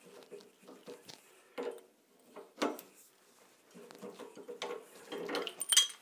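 Wrench tightening a threaded pipe fitting into a metal laundry-tub faucet: irregular metallic clicks and scrapes, with a sharper ringing clink just before the end.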